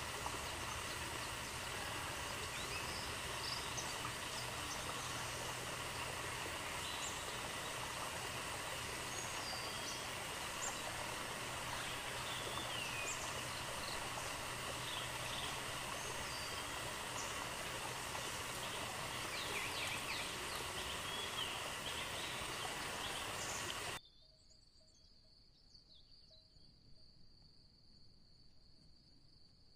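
Forest ambience: a steady hiss and insect drone with scattered short bird chirps. About three-quarters of the way through it cuts suddenly to a much quieter bed holding one steady high insect trill.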